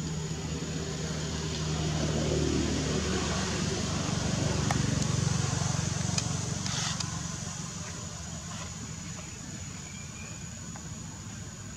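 Low engine rumble of a motor vehicle passing, swelling over a few seconds and then fading away.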